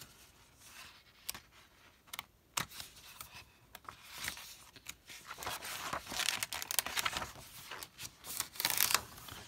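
Paper pages of a spiral-bound planner being turned by hand. A few light clicks and flicks come first, then louder paper rustling and swishing in the second half.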